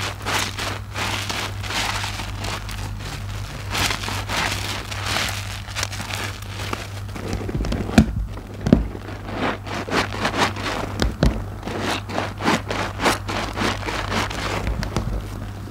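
A soap-soaked IKEA nylon mesh loofah squeezed and kneaded by hand in a tub of foamy water: repeated wet squelches over the crackle and fizz of popping suds.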